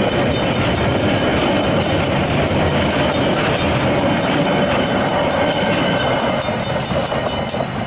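Coal train wagons rolling over a level crossing, their wheels rumbling and clattering on the rails. Over it a level crossing warning bell rings rapidly, about four or five strokes a second, and stops near the end.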